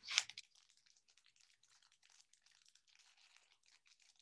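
Wrapper of a 2020 Topps Series 1 baseball card pack crinkling as it is picked up and torn open by hand: a sharp crackle at the start, then steady light crinkling.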